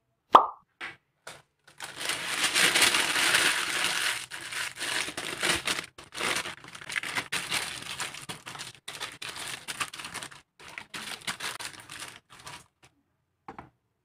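Brown baking paper crinkling and rustling as hands press and smooth it into a square metal baking tin. The crinkling is loudest in the first few seconds and thins out to scattered crackles near the end. It is preceded by one short, sharp knock with a brief ring.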